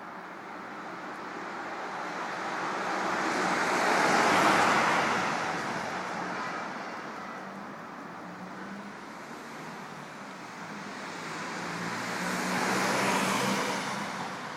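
A car driving past twice: the engine and tyre noise swells to a peak about four seconds in, fades, then swells and fades again near the end.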